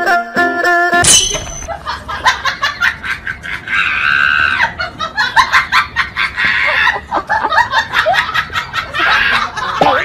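A person laughing over rapid clicking and clattering from a battery-powered crawling toy soldier. The music cuts off about a second in.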